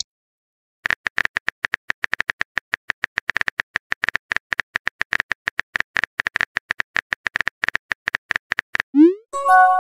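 Keyboard tap clicks of a texting app as a message is typed, a fast even run of clicks lasting about eight seconds. Near the end comes a short rising swoop and chime, the app's message-sent sound.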